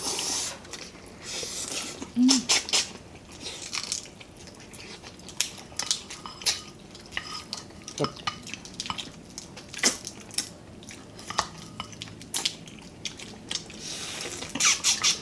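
Close eating sounds of people picking and sucking at cooked crab shells by hand: many small sharp clicks and cracks of shell, chewing, and short hissy sucking and slurping bursts near the start and again near the end.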